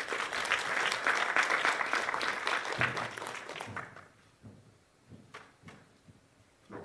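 Audience clapping. A dense spell of many hands that fades out about four seconds in, followed by a few faint knocks.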